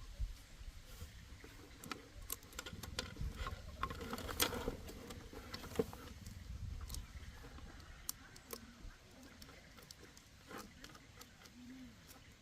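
Scattered light clicks and taps, irregular and short, over a low background rumble.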